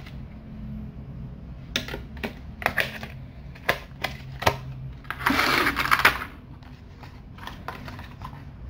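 A thin clear plastic blister tray and cardboard packaging being handled: a string of sharp plastic clicks and taps, then a loud crinkling rustle about five seconds in, followed by a few lighter taps.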